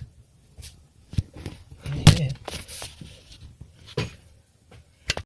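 A few scattered metal clicks and knocks from hand tools being worked on a car engine while a crankshaft locking tool is fitted, the loudest about two seconds in.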